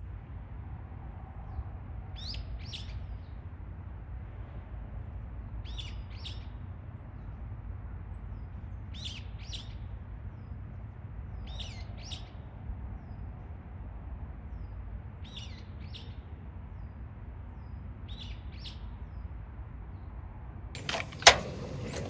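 A bird calling a short double chirp, repeated six times about every three seconds, over a steady low rumble. A single sharp knock sounds near the end.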